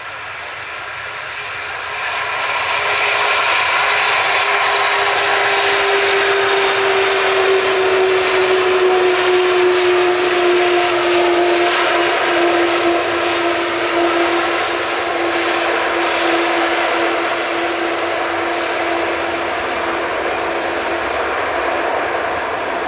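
Jet engines of a four-engined Boeing 747-400 running loud as the airliner rolls along the runway past, a rushing roar with a whine that falls slowly in pitch. The sound swells about two seconds in.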